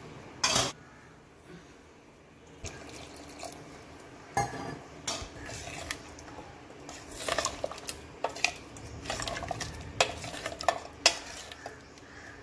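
A ladle knocking and scraping against the side of a pressure cooker pot while stirring a thick chicken curry. One sharp knock comes about half a second in, then scattered clinks and scrapes that grow busier in the second half.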